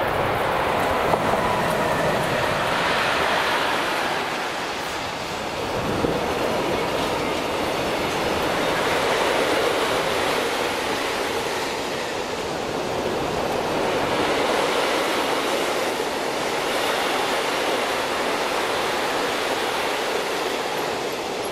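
Electric-hauled freight train passing close by: the steady rolling noise of steel wagon wheels on the rails, tank wagons among them, swelling and easing slowly, with a few sharp clicks.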